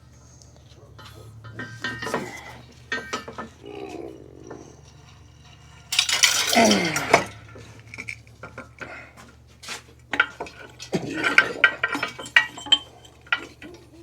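Metal tools and bearing-press pieces clinking and rattling as they are picked up and fitted, with a louder scraping rattle about six seconds in.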